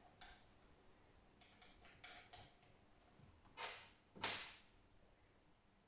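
Quiet handling sounds of the thumb screws being tightened on a Lee Auto-Disk powder measure mounted on a LoadMaster press: a few faint short scrapes, then two louder short rasping sounds about half a second apart, just past the middle.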